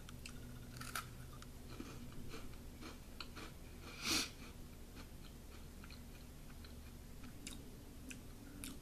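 A person chewing a crisp butter cookie close to the microphone: faint, scattered crunchy clicks, with one brief louder noise about four seconds in.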